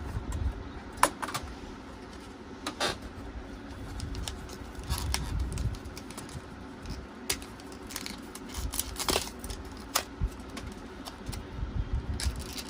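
Scattered clicks and taps of hands handling PC parts as a processor is readied to go into the motherboard, the sharpest click about a second in, over a steady low hum.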